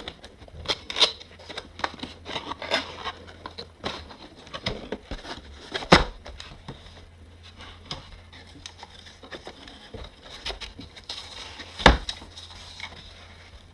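A keyboard's retail packaging being opened and handled: irregular rustling, scraping and light clicks, with two sharper knocks, one about six seconds in and one near the end.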